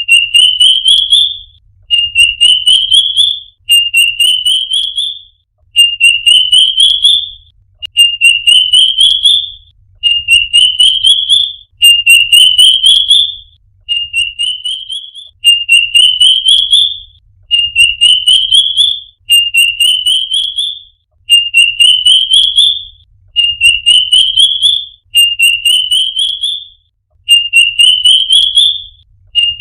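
A songbird repeats one short song phrase over and over, about every two seconds. Each phrase is a quick run of high notes that rises in pitch over about a second and a half.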